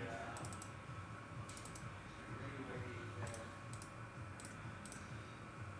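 A few scattered, faint clicks at a computer, coming in small clusters every second or so.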